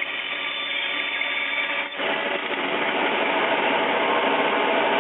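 Bandsaw with a 1/4 inch blade running and cutting a tight curve in wood, a steady machine noise that dips briefly about two seconds in and then comes back louder.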